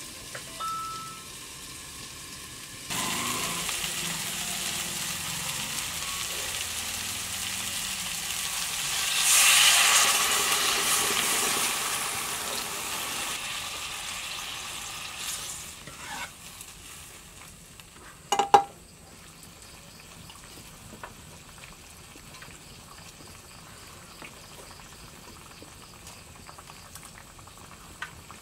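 Cauliflower curry sizzling in an iron karahi over a wood fire. The hiss swells sharply about nine seconds in, as liquid goes into the hot pan, and fades as it turns to a gravy. A couple of metal ladle clinks come near the middle, then the curry simmers quietly.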